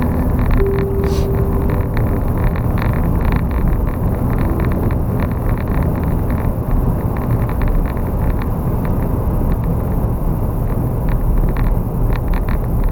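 A car driving: a steady rumble of road and engine noise.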